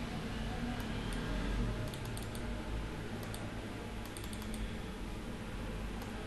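Computer keyboard keys clicking in three short bursts, over a steady low hum.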